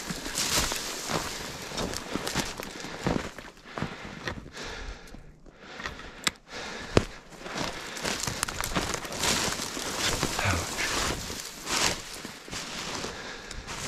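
Footsteps crunching through woodland undergrowth at an irregular pace, with a brief lull about five seconds in and a single sharp click about halfway through.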